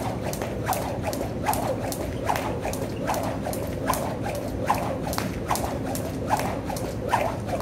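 Jump rope slapping the floor in a steady rhythm as someone skips continuously, with sharp clicks several times a second and a stronger slap about every second.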